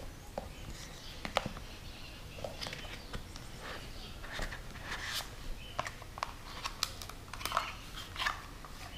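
Unboxing handling noises: paper and packaging rustling, with scattered light clicks and taps against a cardboard box as items are lifted out.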